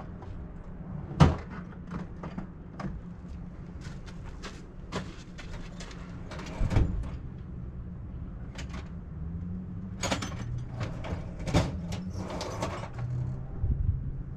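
Scattered clanks and knocks of hand-tool work on a truck's front suspension, the loudest knock about a second in and others near the middle and toward the end, over a steady low hum.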